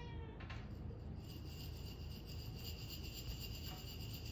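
A cat's meow ending right at the start, followed by a steady high-pitched, finely pulsing scratchy sound lasting about three and a half seconds.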